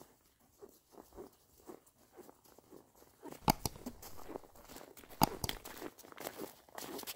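Footsteps crunching in snow, at first about two steps a second, then more irregular, with two sharper knocks about three and a half and five seconds in.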